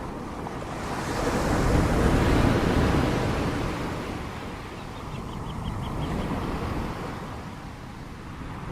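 Ocean surf: a wave breaks and washes in, peaking about two seconds in and fading away, then a smaller wave swells around six seconds in.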